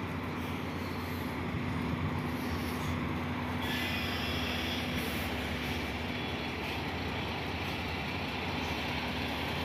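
Steady low hum of a vehicle engine idling, holding one even pitch, with a brief thin high squeal about four seconds in.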